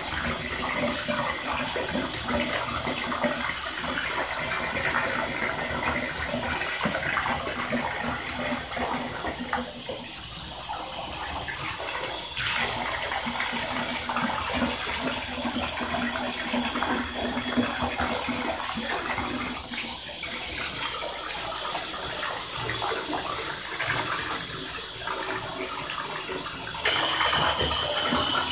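Water running from a bathtub faucet into the tub: a steady rush and splash, shifting abruptly about twelve seconds in and again near the end.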